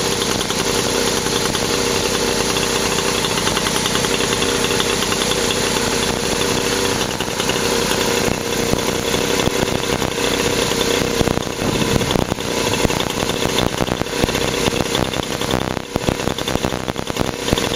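Raleigh Wisp moped's modified Motobecane AV7 two-stroke single-cylinder engine, fitted with a 46 mm cylinder and a Dellorto 15/15 carburettor, running on its stand. Its sound grows more uneven after about eleven seconds.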